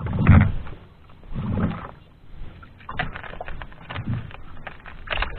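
Sea water slapping against the hull and outriggers of a small wooden outrigger boat, in irregular splashes a second or so apart.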